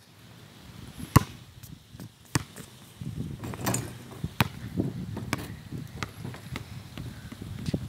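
A basketball bouncing on a concrete driveway: sharp single smacks at uneven intervals, about six in all, the loudest a little over a second in.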